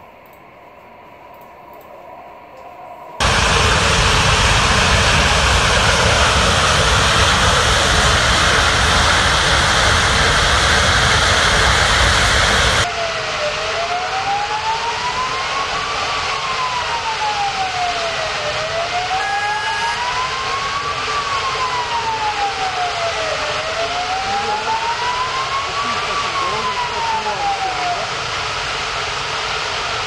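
Loud steady roar of burning high-pressure natural gas from a ruptured valve, starting abruptly about three seconds in. About thirteen seconds in it drops to a quieter steady roar, and an emergency vehicle siren wails up and down, rising and falling once every five seconds or so, until near the end.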